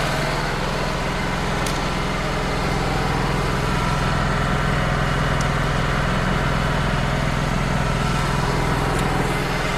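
Wood-Mizer LT35 hydraulic portable sawmill's engine running steadily at an even pitch, with a couple of faint clicks.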